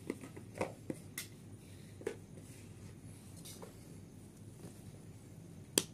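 Handling of plastic earbud charging cases and their cardboard boxes: scattered light clicks and taps, the sharpest one near the end.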